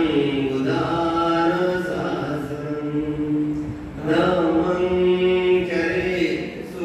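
A man chanting Buddhist devotional verses into a microphone in long, sustained, sing-song phrases. He breaks briefly for breath about four seconds in, then goes on.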